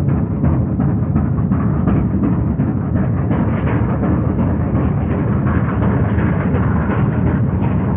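Steam locomotive running with a train: a steady, loud rumble of exhaust and wheels, carrying a fast run of beats.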